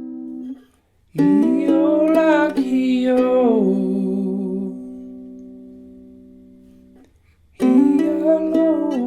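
Soprano ukulele with an ancient Sitka spruce top and pernambuco back and sides: notes ringing at the start are cut off, a chord is strummed about a second in and left to ring and slowly fade, then cut off, and another strummed chord starts near the end.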